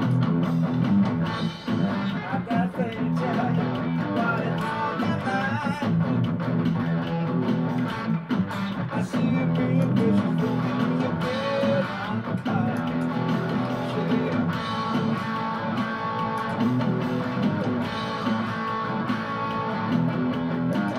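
Electric guitar playing an instrumental passage, with single-note lines and bent notes over a steady low part.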